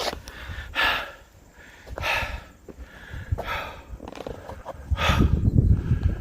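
A man breathing heavily and deeply, catching his breath after a strenuous uphill hike, with several loud breaths in a row. A low rumble comes in about five seconds in.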